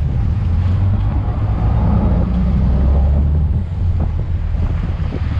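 Boat engine running steadily under wind buffeting the microphone, a loud low rumble.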